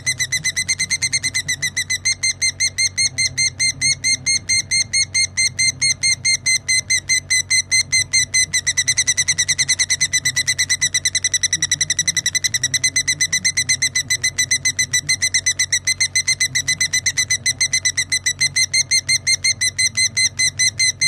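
Lovebird ngekek: a long unbroken trill of rapid, evenly spaced high-pitched chirps, about four or five a second, over a steady low hum.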